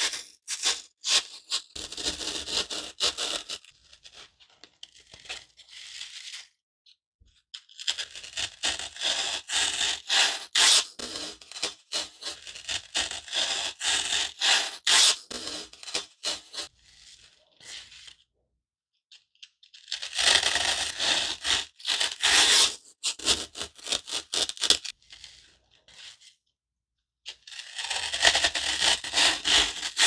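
Garden foam block being cut, giving a dry, staticky rasp full of fine crackles. It comes in stretches of a few seconds with short pauses between strokes.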